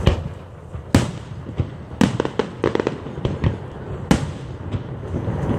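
Aerial fireworks shells bursting at close range: sharp bangs right at the start, about a second in, about two seconds in and again about four seconds in, with a run of smaller crackles between the second and fourth bangs.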